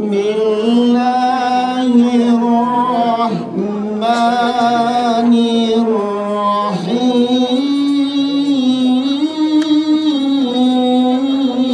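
A man chanting a melodic recitation into a handheld microphone, in three long phrases of drawn-out notes with ornamental turns, breaking briefly about three and a half seconds and about seven seconds in.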